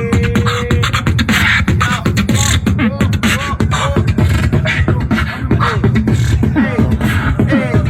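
A person beatboxing: a fast, steady run of mouth-made drum hits and clicks mixed with short sung pitch glides.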